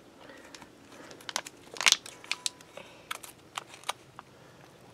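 Foil MRE entrée pouch crinkling and crackling as it is handled open over a bowl. A quick run of sharp crackles starts about a second in and is loudest about two seconds in.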